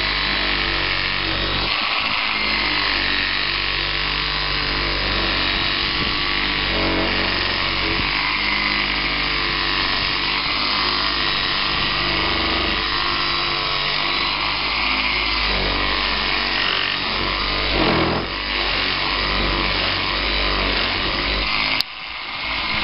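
Kobalt 4-amp corded reciprocating saw running steadily as its blade cuts through a thick tree branch. The saw cuts off suddenly near the end, then starts up again.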